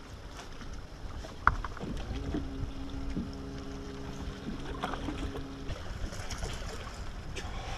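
Wind rumbling on the microphone aboard an open boat, with a sharp click about a second and a half in. A steady low hum, with overtones, starts about two seconds in and stops about three and a half seconds later.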